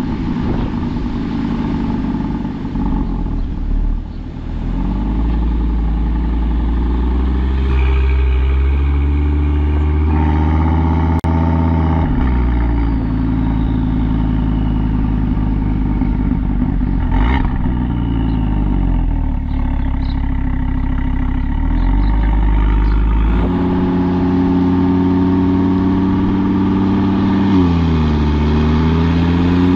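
Audi RS3 8V's 2.5 TFSI five-cylinder engine heard through its RS exhaust with both exhaust valves held open by an SST valve-control box, pulling through the gears in town: the pitch climbs, drops at an upshift about twelve seconds in, and climbs again. Near the end the exhaust is in dynamic mode with only one valve open below 3500 rpm.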